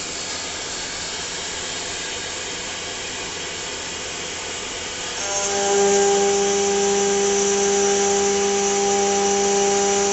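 CNC lathe running with a steady mechanical hiss. About halfway through, a steady whine sets in and the sound grows louder, then holds.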